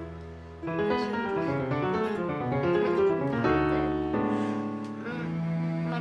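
Orchestral music with piano and strings: a quick passage of moving notes begins about half a second in, giving way to held chords a little past the middle.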